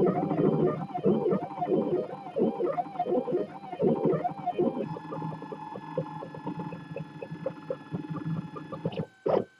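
3D printer's stepper motors singing as the print head moves back and forth, in quick repeated rising-and-falling tones. About five seconds in, this changes to steadier tones with rapid ticking. Near the end the sound briefly drops out with a sharp click.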